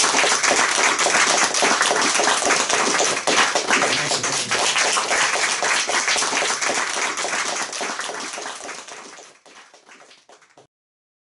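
Audience applauding, a dense crackle of many hands clapping that fades away over the last few seconds.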